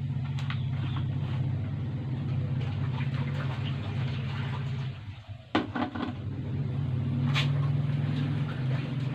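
A steady low motor-like hum, dipping briefly about halfway through. A few sharp clacks of kitchen items being handled follow soon after.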